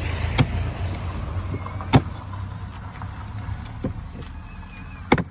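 A large curved fish-cutting knife striking a wooden cutting board while a fish is cut: three sharp knocks, about half a second, two seconds and five seconds in, with a few lighter taps between, over a low steady rumble.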